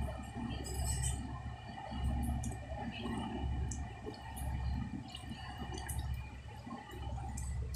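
Wet hands kneading Pioneer Non-Sag epoxy putty over a basin of water: soft squishing and dripping with scattered small clicks. Under it runs a low, uneven rumble and a faint steady hum.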